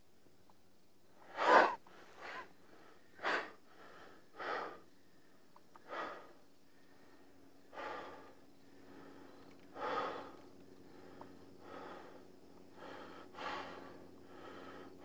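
A young man's ragged, heavy breathing: sharp gasps and panting breaths, one every one to two seconds, the loudest about a second and a half in. It is the breathing of someone shaken and nauseated at the sight of a dead body.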